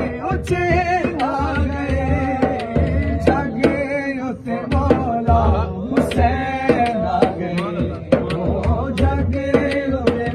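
A man singing a devotional manqabat in a wavering, ornamented voice, accompanied by a large daf frame drum beaten by hand in a steady rhythm of deep thuds and sharp slaps.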